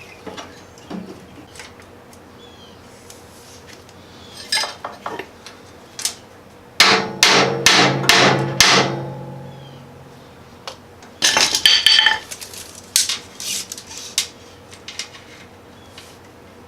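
Hammer blows on a steel plate: a run of about six quick strikes a few seconds in, then a second short burst of ringing metal strikes a couple of seconds later, with scattered small metal clanks and clicks around them.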